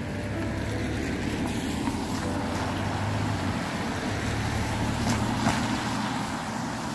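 A car driving past on a wet road, its tyre noise swelling as it comes close and loudest about five seconds in.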